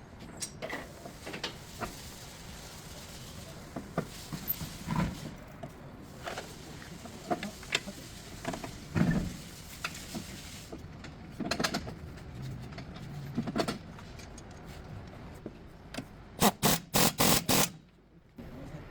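Metal tools working on a car's outer tie rod end: scattered clanks and knocks, then a quick run of about six loud, sharp strikes near the end.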